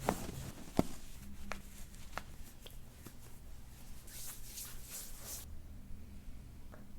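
Handling sounds during a chiropractic session: a few sharp clicks, the loudest about a second in, then rustling for about a second and a half from around four seconds.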